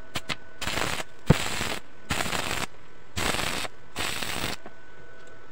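Stick-welding arc crackling in four short bursts, each about half a second to a second long, as the electrode tack-welds a steel plate onto a motorcycle sprocket. A few quick clicks of the rod striking the arc come first.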